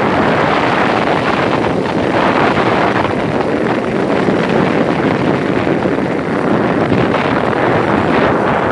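Loud, steady wind rushing over the microphone of a phone carried on a moving vehicle, mixed with the vehicle's road noise.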